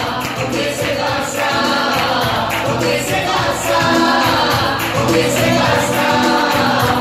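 Live singing by a man and a woman over music with a steady beat.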